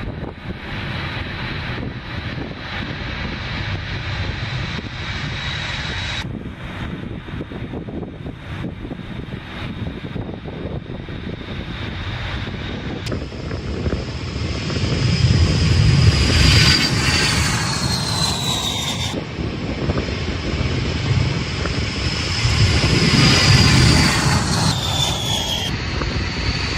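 B-52 Stratofortress bomber's eight turbofan jet engines running at high power, with a steady high whine and rumble. Twice, around the middle and again near the end, a bomber passes: the whine falls in pitch as the low rumble swells and fades.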